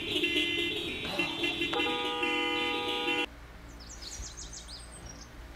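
Several car horns honking at once in a traffic jam, long held blasts that overlap, cut off suddenly about three seconds in. Faint short high chirps follow.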